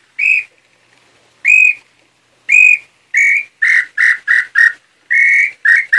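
A hand-made wooden throat call (pio garganta) for the nambu pé-roxo tinamou, blown by mouth: a series of clear, high whistled notes imitating the bird's song. The notes come about a second apart at first, then quicken into short, rapid notes from about three seconds in, with another quick run near the end.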